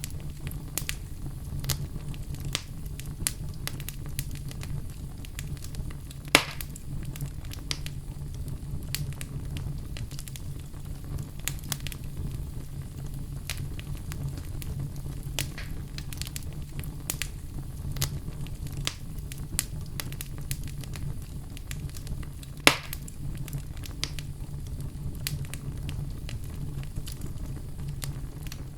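Wood fire crackling in a fireplace: a steady stream of small clicks and snaps over a low, even rumble, with two louder pops, one about six seconds in and one about three quarters of the way through.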